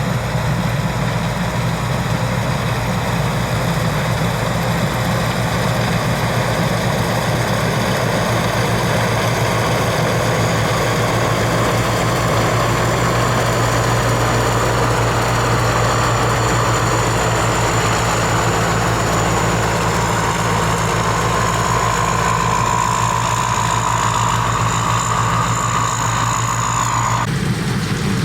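Rice combine harvester running steadily: a low engine drone under a mechanical whine that rises slightly in pitch. Near the end the whine cuts off suddenly and the engine drone carries on.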